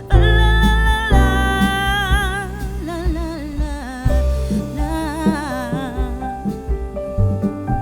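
Background music: a vocal song with sung held notes with vibrato over a slow accompaniment.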